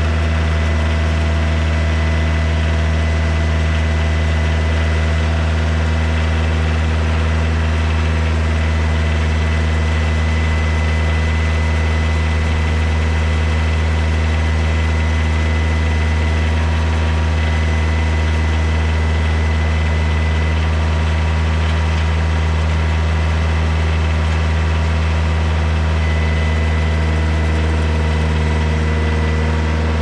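Kioti DK40se tractor's diesel engine idling steadily, with a thin high whine running over the engine note.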